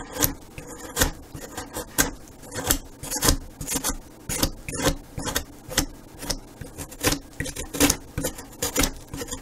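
A No. 11 surgical blade carving the wooden corner of a model airplane fuselage, shaving through the sheeting and triangular stock. A string of short, crisp cutting strokes, roughly one or two a second at an uneven pace.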